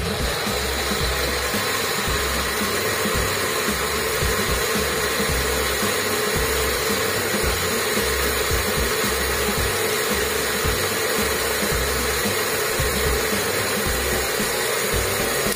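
Countertop electric blender running steadily, its blades chopping chunks of guava into a smooth purée.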